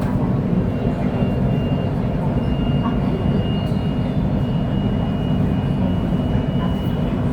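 KTM Komuter electric train running along the track: a steady low rumble with a faint, steady high whine that comes in about a second in.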